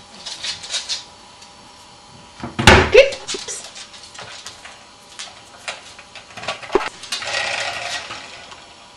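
A dog nosing and pushing small hard plastic objects on a wooden floor: scattered clicks and clatters, a loud clatter about three seconds in, and a sliding scrape near the end.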